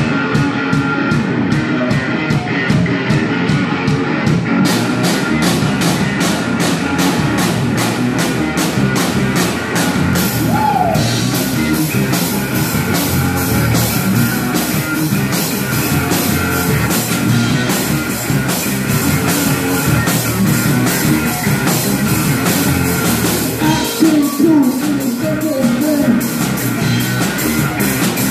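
Live blues-rock band playing: two electric guitars through amplifiers over a drum kit. The drum kit keeps a steady beat that gets brighter about four seconds in.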